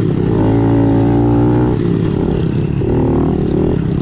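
Honda CRF110's small single-cylinder four-stroke engine pulling at steady throttle under the rider, its note rising slightly. It drops off about two seconds in, then picks up again briefly near the end.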